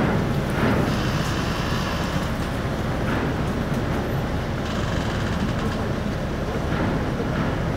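Car ferry's engines running with a steady low rumble as it comes alongside, with a fainter hiss that rises and falls over it.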